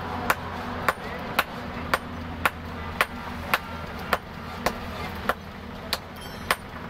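Two sledgehammers striking hot truck leaf-spring steel on an anvil in alternation, sharp metallic blows about twice a second, as the steel is forged into an axe head. A steady low hum runs underneath.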